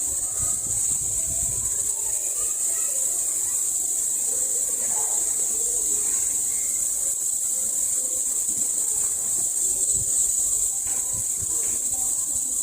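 Male cicadas calling with a steady, high-pitched buzz.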